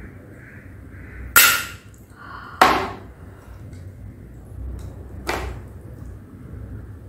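Cooked crab shell cracked apart by hand: two sharp, loud cracks a little over a second apart, then a fainter crack a few seconds later.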